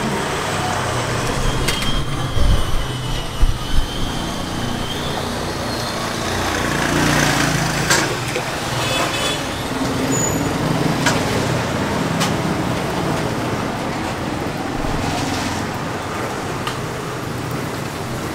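Steady street traffic noise of passing vehicles, with a few low thumps about two to four seconds in. Later come several short sharp clinks as a metal ladle touches the clay banh can molds while rice-flour batter is poured in.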